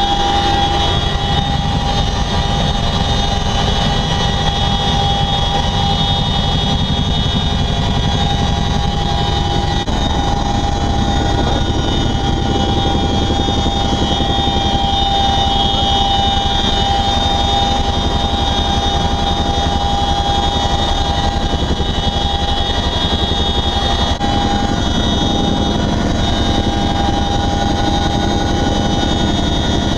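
Chinook tandem-rotor helicopter in flight, heard from inside its cargo bay with the rear ramp open: a loud, steady din of rotors and twin turbine engines with steady high whining tones over it.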